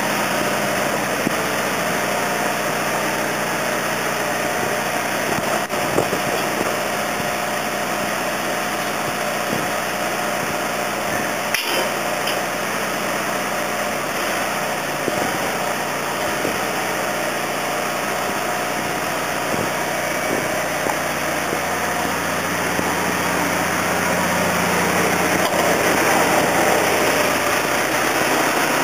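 Engine of a bucket truck running steadily while its Telsta boom is operated, with one sharp click partway through; it grows slightly louder over the last few seconds.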